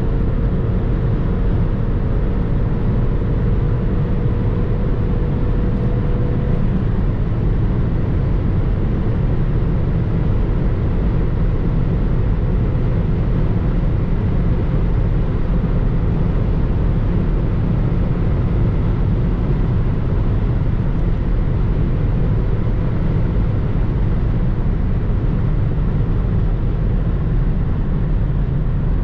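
Cabin noise of a 2014 Opel Astra J GTC with its 1.6-litre turbocharged four-cylinder at around 200 km/h: a steady, loud roar of wind and road noise with the engine running underneath. A faint engine tone rises slightly over the first few seconds as the speed climbs.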